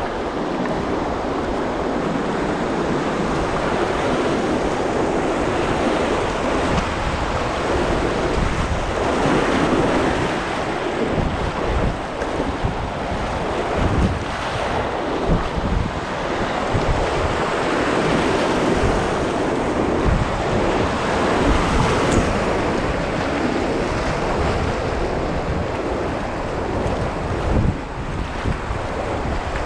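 Rushing river water, a steady roar of whitewater, with wind buffeting the microphone in irregular low thumps.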